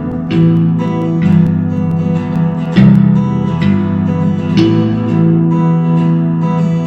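Background music: a strummed acoustic guitar, its chords struck about once a second.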